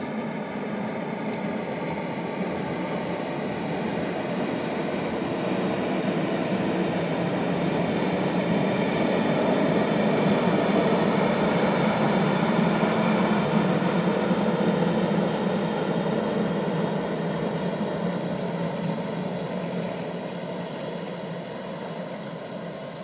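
Kawasaki Jetfoil 929-117's gas-turbine waterjet propulsion running: a broad rush with a high whine, growing louder to a peak about halfway through and then fading, the whine sliding lower in pitch near the end.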